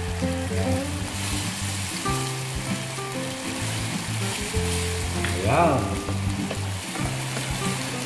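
Beef and oyster-sauce gravy boiling and sizzling in a nonstick wok while a wooden spatula stirs in cornstarch slurry to thicken it.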